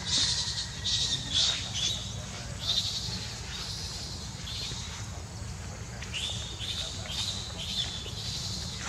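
Young macaque giving short, high-pitched cries, repeated about twice a second, that fade out after the first second or two and start up again near the end, over a steady low rumble.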